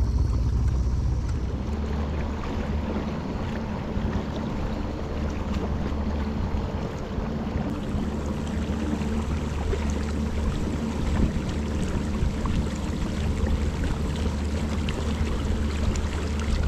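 Outboard motor running at a steady speed as a small metal boat moves under way, with water rushing past the hull.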